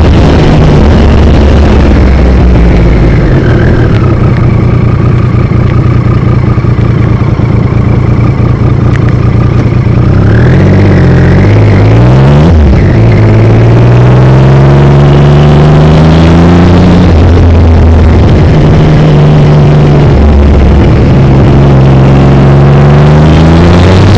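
Triumph Trophy motorcycle engine running on the road, its note dipping and rising with the throttle and climbing after the middle as it accelerates. Heavy wind noise on the camera's microphone covers much of it.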